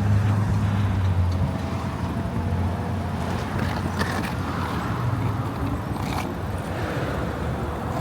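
Street traffic: a motor vehicle's low drone is strongest at first and eases off after about a second and a half, leaving steady road noise.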